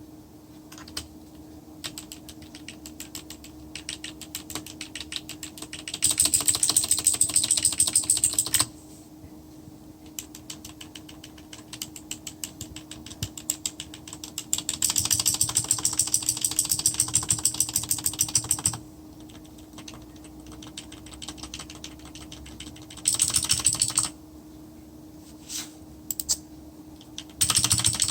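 Typing on an Armaggeddon MKA-61C 60% mechanical keyboard: scattered quieter keystrokes broken by loud, fast runs of key clacks, the longest about six seconds in and again from about fifteen to nineteen seconds, with shorter runs near the end. A faint steady hum sits underneath.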